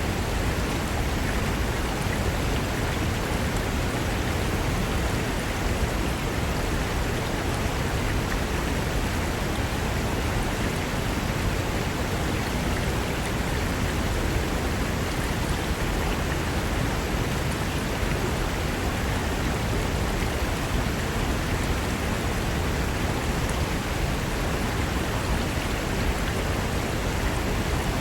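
Mountain river rushing over rocks: a steady, dense rush of water with no let-up.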